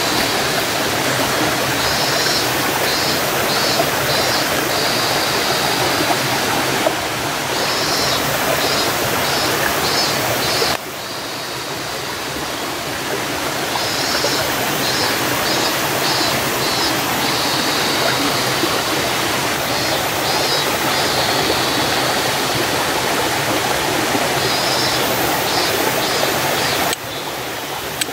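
Running water of a stream, a steady rushing hiss. Short runs of rapid, high pulsing chirps repeat over it.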